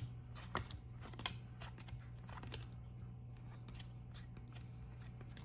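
Panini Chronicles soccer trading cards being flipped through one by one in the hands, the card stock giving light clicks and sliding sounds, mostly in the first half, over a low steady hum.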